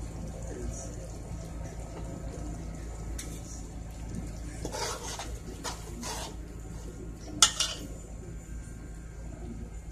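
A metal spoon scraping and clanking against a metal cooking pot as yogurt is stirred into thick chicken curry: a few short scrapes, then one sharp clank about seven and a half seconds in, the loudest sound. A steady low hum runs underneath.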